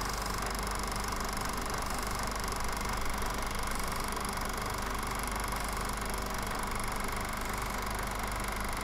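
Steady whir and hum of a film projector running, with no soundtrack on the film.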